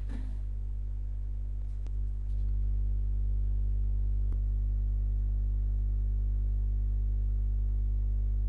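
Steady low electrical hum with a stack of evenly spaced overtones, typical of mains hum picked up by the recording chain. It gets a little louder about two seconds in. A couple of faint clicks sound over it.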